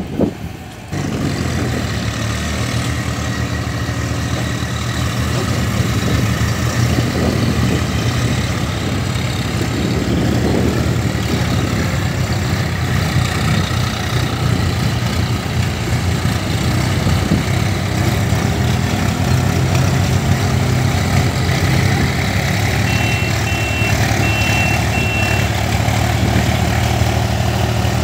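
Swaraj farm tractor's diesel engine running steadily and loud. Four short high beeps sound near the end.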